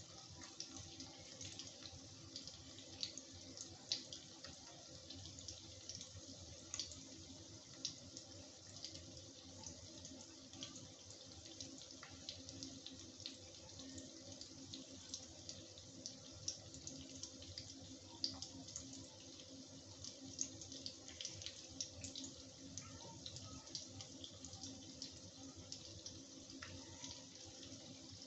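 Paneer cubes frying in mustard oil in a kadai: a steady soft sizzle, dotted with many small crackles and pops.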